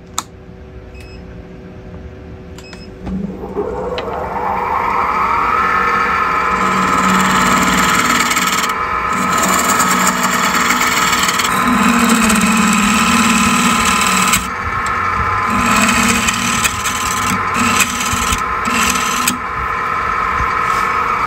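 A wood lathe starts about three seconds in, its motor whine rising in pitch as it spins up and then holding steady. A gouge then faces off the end of a square purpleheart blank, the cutting noise coming in uneven stretches with short breaks.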